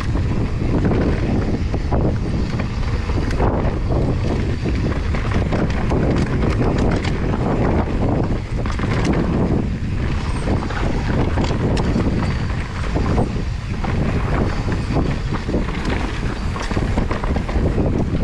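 Mountain bike rolling fast down a dirt singletrack: tyre noise on the trail with frequent knocks and rattles from the bike over roots and bumps, under steady wind noise on the microphone.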